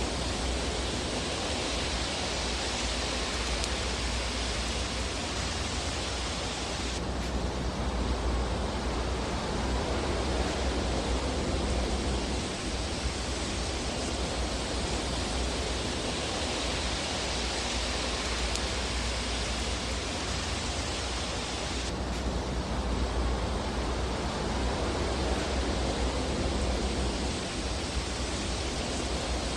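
Fireplace fire ambience: a steady hiss over a low rumble, swelling slowly in the upper hiss and changing abruptly twice, about fifteen seconds apart, as where a recorded loop restarts.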